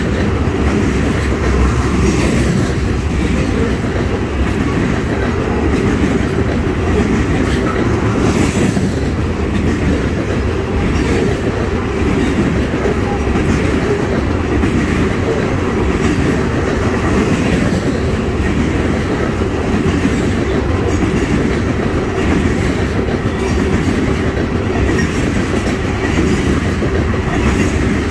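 Freight train's tank cars rolling past close by: a steady, loud rumble of steel wheels on the rails, with a repeating clickety-clack as the wheels pass over the track joints.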